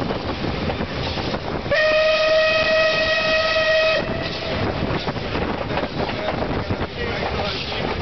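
Whistle of MÁV steam locomotive 324.540 blowing one steady blast of about two seconds, starting near two seconds in. It sounds over the running noise of the moving train.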